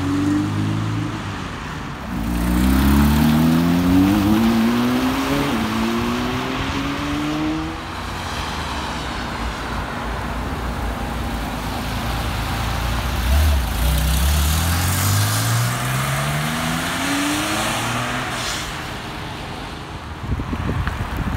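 Classic Porsche sports cars pulling away one after another, each engine climbing in pitch as it accelerates, with breaks at the gear changes. Tyres hiss on the wet road throughout.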